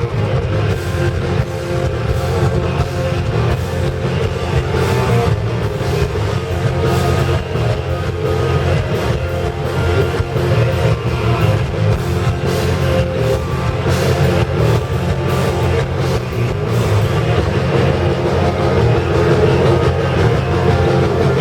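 Heavy metal band playing live: electric guitar, bass and drum kit, loud and continuous.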